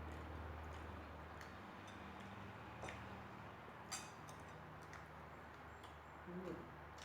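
Faint, sparse clicks of cutlery against a plate during eating, the sharpest about four seconds in, over a low steady hum.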